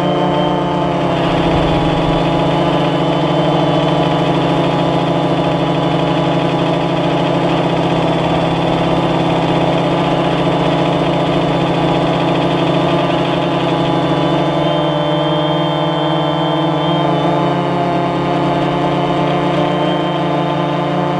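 AirDog follow-me drone's electric motors and propellers running with a steady, loud hum made of many even tones. The pitch shifts slightly about a second in and again a little past the middle.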